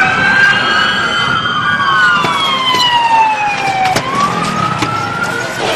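Police car siren wailing: one pitched tone that falls slowly over a couple of seconds and then climbs again near the end.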